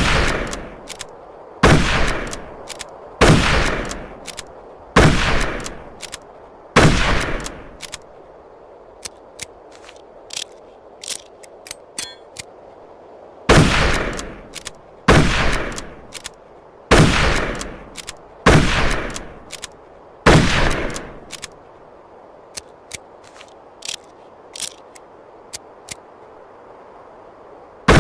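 Mosin-Nagant bolt-action rifle shots, each with a long echoing tail, fired about every second and a half to two seconds in two strings of five. Between the two strings come several light metallic clicks.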